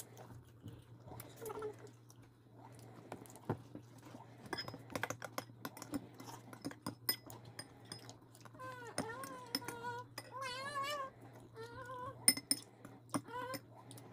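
Metal spoons clinking and scraping against stainless steel bowls, with sipping of soup, in many scattered short clicks. Short high-pitched wavering sounds come twice in the second half.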